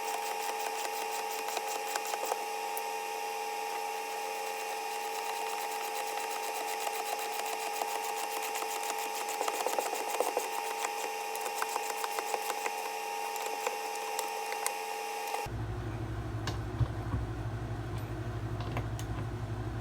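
A power tool's motor running steadily with a high whine and rapid small clicks, stopping abruptly about fifteen seconds in; a low steady hum with a few light knocks follows.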